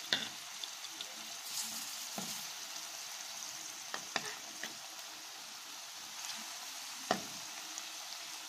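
Ta'ameya (fava-bean falafel) patties frying in hot oil in a pan: a steady sizzle with a few sharp crackles now and then.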